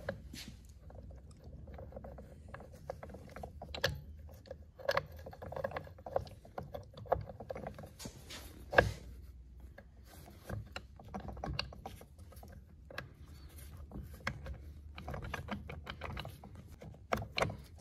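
Steel shift drum and shift forks being wiggled by hand into a Polaris Ranger 570 transmission case: scattered metal clicks, clinks and rubbing as the parts seat, with the sharpest knock about nine seconds in.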